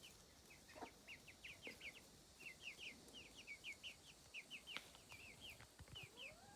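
Faint chickens: a steady run of short, high peeps from chicks, several a second, with a lower rising call from an adult hen near the end.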